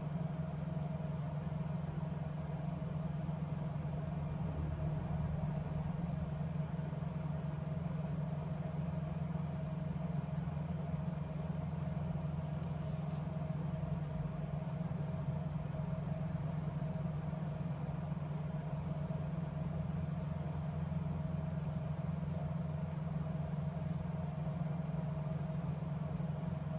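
Steady low mechanical hum with a thin constant higher tone above it, unchanging throughout.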